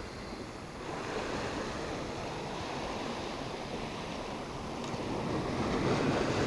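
Sea surf breaking and washing over a rocky shore: a steady rush of waves that swells louder near the end.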